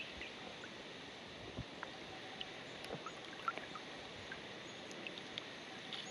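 Faint water sounds with scattered light ticks and small splashes: a hooked bass splashing at the surface as it is reeled in to an inflatable raft.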